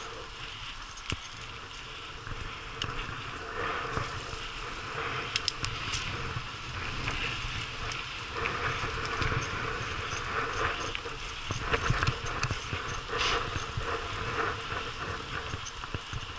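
Mountain bike rattling down a rough, stony track, picked up by a helmet-mounted action camera. Tyres crunch over loose rock under a constant clatter, with many sharp knocks, the loudest coming in the second half.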